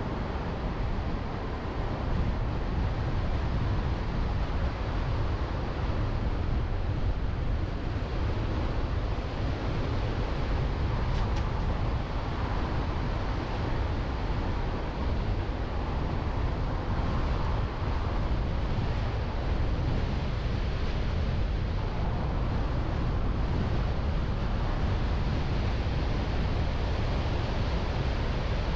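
Steady wind and road noise from a moving car, picked up by a car-mounted GoPro HERO 8 action camera. The low rumble of wind hitting the microphone is the strongest part.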